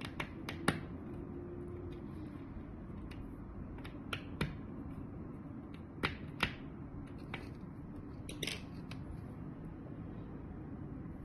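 Scattered small sharp clicks and taps, about eight in all, some in close pairs, from hands handling thin wires and a plastic DC barrel-jack screw-terminal adapter, over a steady low background hum.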